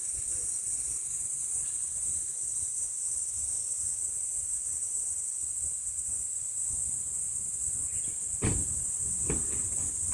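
Insects chirring in a steady high-pitched chorus, with two sharp knocks about a second apart near the end.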